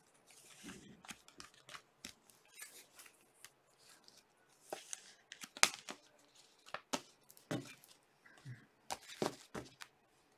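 Glossy trading cards being handled and sorted by hand, sliding and flicking against one another: a run of irregular short rustles and clicks, the sharpest snap a little past halfway.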